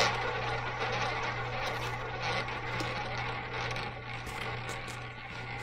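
A ball rolling fast around the track of an American double-zero roulette wheel just after the launch, a steady whir that fades slowly as it loses speed.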